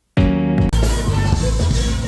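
Dancehall song playing: after a brief gap, a short held note leads straight into the full beat with heavy bass and drums, which comes in under a second in.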